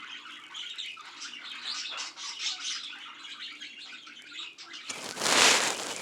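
Pet bird making soft, scattered chirps and clicks, then a loud, harsh rush of noise about five seconds in that lasts about a second.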